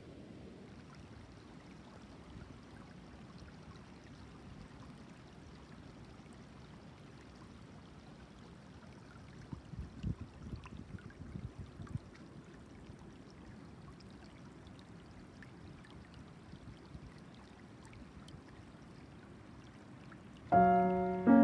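Faint, steady trickling of a shallow stream running over and between stones. About nine seconds in, a few louder low bumps come through for a couple of seconds, and piano music starts about a second before the end.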